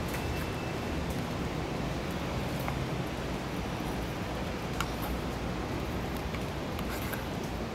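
Steady hiss of outdoor background noise, with a couple of faint clicks about five and seven seconds in.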